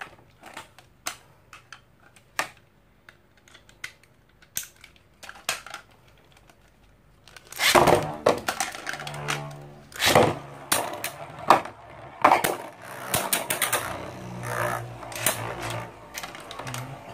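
Scattered sharp clicks of the tops and launchers being handled, then, about seven and a half seconds in, Infinity Nado spinning tops are launched into a clear plastic stadium. They whir and clatter as they skid and knock against each other and the rim.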